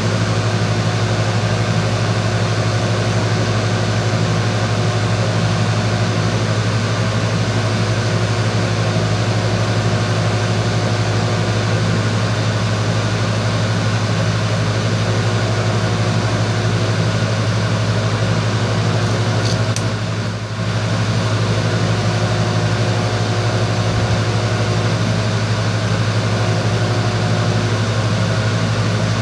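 Electric arc welding: a steady arc hiss over a loud, constant buzzing hum. The sound dips for a moment about two-thirds of the way through, then carries on as before.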